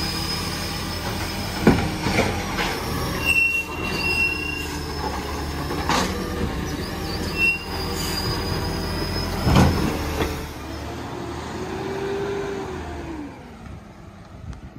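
Side-loading recycling truck working a kerbside bin: the diesel engine runs steadily while the hydraulic lifting arm squeals and the wheelie bin bangs a few times as it is emptied and set back down. About ten seconds in the truck pulls away, its engine note rising and then falling as it moves off and fades.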